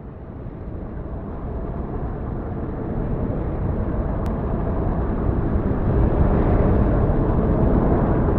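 A low rushing rumble that fades in and swells steadily louder, an intro sound-effect build-up.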